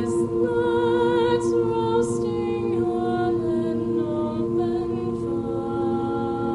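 High school chamber choir singing a cappella: low voices holding steady chords while the upper voices move, with a few sung 's' sounds early on.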